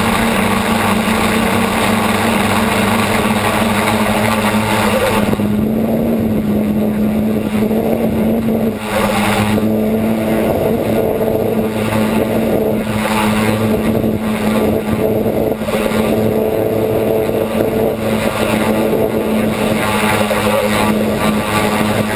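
Steady drone of the camera-carrying model aircraft's motor and propeller, holding one pitch throughout. About five seconds in, the higher hiss above it drops off, and the drone carries on.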